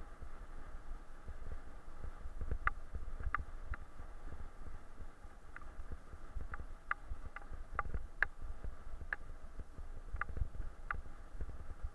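Bicycle rolling fast over a bumpy dirt field track while being pulled by dogs: a steady low rumble of the ride, with irregular light sharp clicks from a couple of seconds in.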